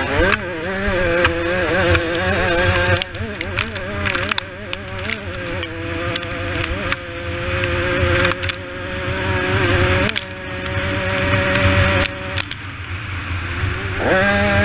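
Two-stroke engine of a KTM supermini dirt bike under racing load, heard from the bike itself: revs rise and fall with the throttle, hold steady for a few seconds mid-way, and drop briefly about ten seconds in and again near the end. A rushing noise runs under the engine.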